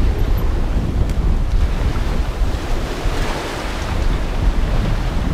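Wind buffeting the microphone over the rush of water past the hull of a Contessa 35 sailing yacht driving hard through rough sea, with a louder wash of water about three seconds in.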